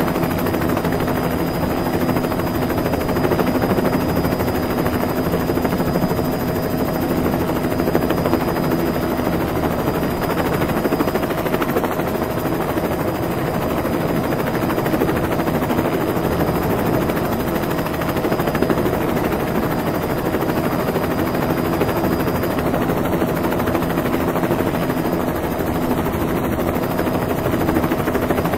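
Helicopter rotor and engine noise at an even level: a continuous rapid chop with a steady hum.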